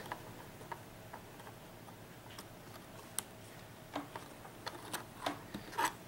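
Faint scattered clicks and ticks of a laptop RAM module being slid into its memory slot and pressed down into its retaining clips, with one sharper click about three seconds in and a cluster of small clicks near the end.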